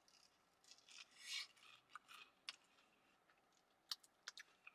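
Faint scraping and a few short clicks of a fork working at food in a takeout box, with a brief scrape about a second in and sharper clicks near the end.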